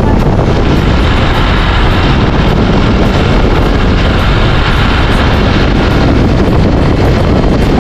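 Loud, steady wind rush on the microphone of a camera riding on a moving vehicle, mixed with the vehicle's running engine and road noise.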